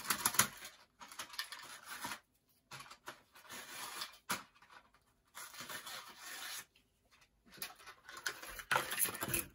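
Stiff plastic blister packaging of model railroad track crinkling and crackling as it is worked open by hand, in several bouts separated by short pauses.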